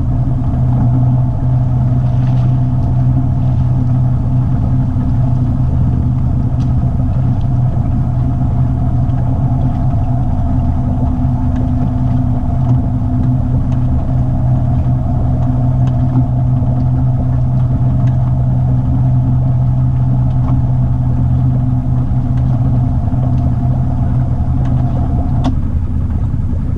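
ATV engine running steadily at a constant speed, a continuous hum that holds one pitch; about 25 seconds in its note changes and part of the hum drops away.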